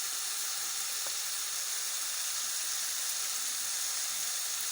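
Chicken strips and onions frying in an oiled pan, sizzling steadily.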